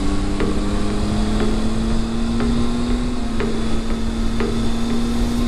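Motorcycle engine running at a steady cruise with wind rush on the helmet-camera microphone, its hum easing slightly lower in pitch. A faint sharp tick sounds about once a second.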